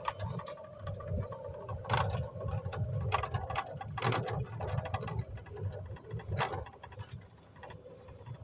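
A steady mechanical hum, like a small engine or motor running, with a few scattered knocks.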